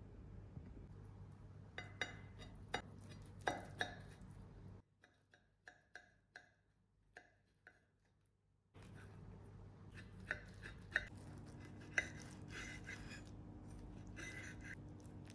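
Knife and fork cutting into baked stuffed eggplant halves on a plate: scattered light clinks and taps of metal cutlery against the plate.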